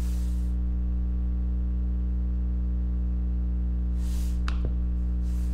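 Steady low electrical hum with a row of evenly spaced higher overtones, unchanging throughout. Two brief soft hisses, one at the start and one about four seconds in.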